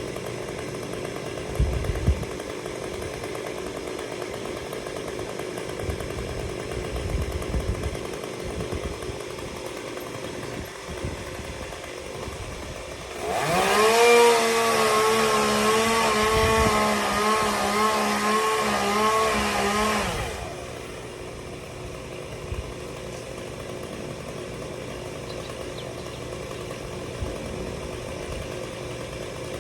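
Chainsaw running at low speed, then revved to full throttle for about seven seconds in the middle before dropping back. A few knocks sound about two seconds in and again around the eight-second mark.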